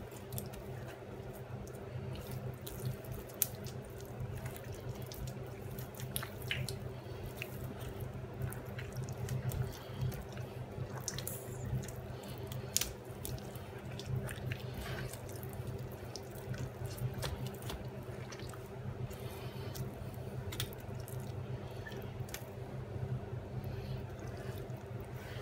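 Hands rubbing butter into the skin of a raw whole chicken: wet squelching and light slapping, short sharp smacks scattered throughout. A steady low hum runs underneath.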